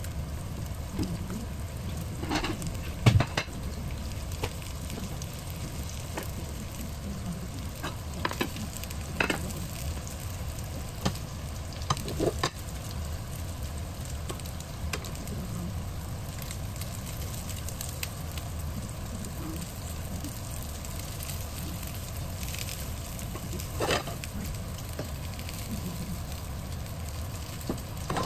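Breaded chicken pieces sizzling steadily as they shallow-fry in oil in a frying pan, with scattered clicks and knocks of metal tongs against the pan as the pieces are moved and turned.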